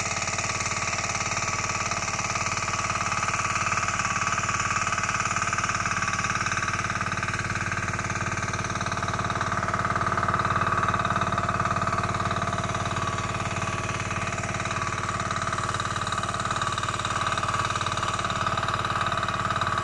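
Small gasoline engine of a pesticide power sprayer running steadily at constant speed.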